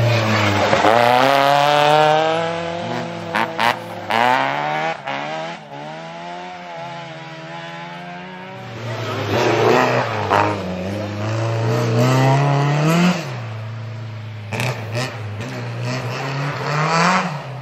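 Rally car engine revving hard as it passes, its pitch climbing through the gears and dropping at each shift or lift, with short sharp cracks in between. Engine fades somewhat in the middle and rises again in the second half.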